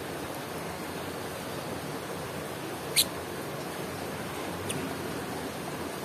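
A lovebird gives one short, sharp, high chirp about three seconds in, and a fainter one a couple of seconds later, over a steady hiss of background noise.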